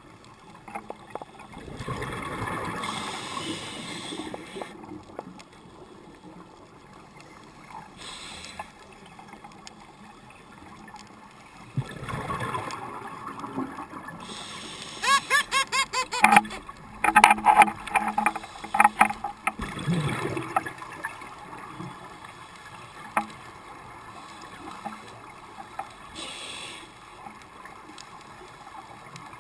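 A scuba diver breathing underwater through a regulator: hissing breaths, with a long burbling rush of exhaled bubbles in rapid pulses about halfway through, the loudest part.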